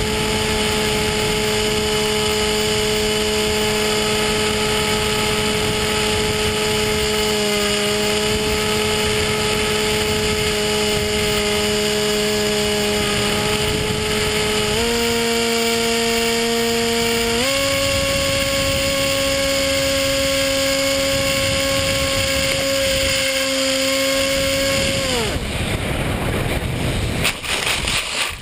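Electric motor and propeller of a Sky Surfer RC foam plane, heard from its onboard camera, running with a steady whine that steps up in pitch twice as the throttle is raised. Near the end the motor winds down sharply, followed by rustling and a few knocks as the plane comes down in dry leaves.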